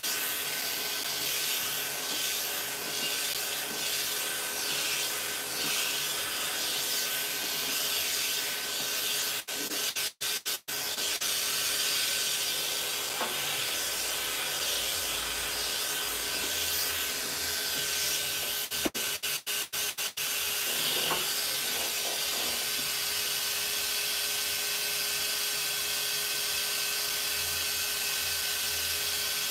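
A high-velocity pet dryer blowing air through its hose: a steady rush of air over a constant motor whine.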